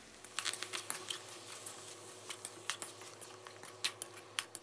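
Chicken pieces frying in curry paste in a steel wok: irregular crackles and clicks, several a second, over a faint steady hum.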